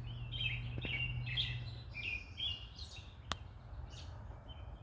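A noisy chorus of many birds chirping at once in the trees, short overlapping chirps with no let-up. A single sharp click sounds about three seconds in.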